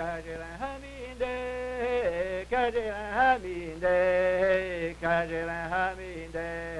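Film-score music: a male voice singing long, wavering notes that step from pitch to pitch, like a chant, over a steady low hum.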